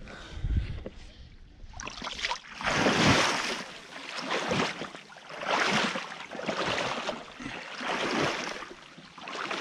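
Someone wading through a shallow creek in waders: water swishes and splashes around the legs with each stride, in regular surges about every second and a half.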